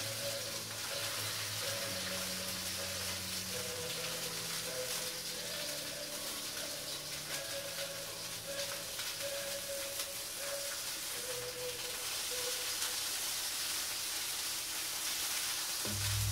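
Chicken breasts frying in oil in a skillet on an electric stove, giving a steady sizzle, with quiet background music under it.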